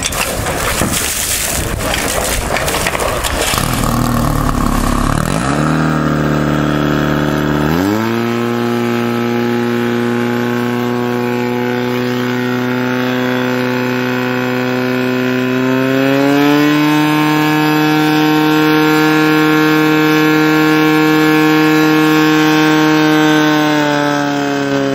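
Portable fire pump's petrol engine running up to high revs and holding there as it drives water through the attack hoses, its pitch stepping up once more partway through and falling away near the end. Several seconds of loud, rushing noise come before the engine note settles.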